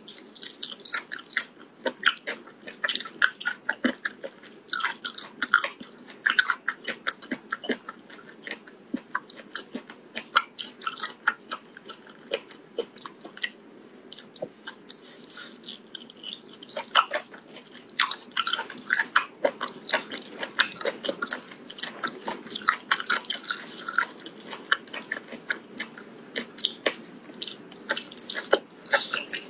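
Close-miked chewing and biting of cooked octopus tentacle: a dense run of mouth clicks and smacks, with a quieter stretch around the middle.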